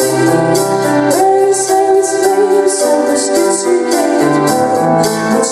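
A girl singing into a microphone over a pop backing track of sustained chords and a steady beat with a high tick about four times a second.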